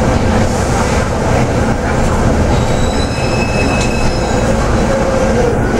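Cabin sound of a Yutong ZK6110HGV city bus under way: its Yuchai YC6G220P-30 six-cylinder diesel running, with a steady low rumble of engine and road noise. A few short high-pitched squeals come about halfway through.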